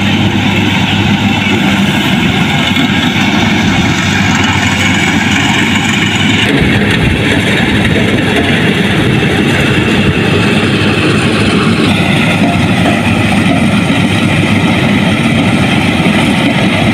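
Harvester's engine running steadily and loud, its tone shifting a little about six seconds in and again about twelve seconds in.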